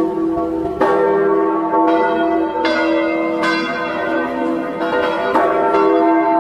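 Church bells ringing: several bells of different pitches struck in turn, about one stroke a second, each one ringing on and overlapping the next.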